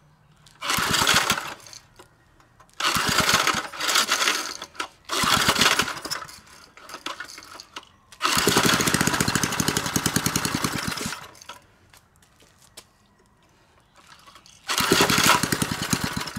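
Briggs & Stratton 3 hp horizontal-shaft single-cylinder engine being pull-started over and over; each pull makes it fire and run for about a second before dying, and the longest run, about halfway through, lasts about three seconds. It dies because it is not drawing fuel up from the tank, running only briefly on the gas it gets, though it runs without any knocking.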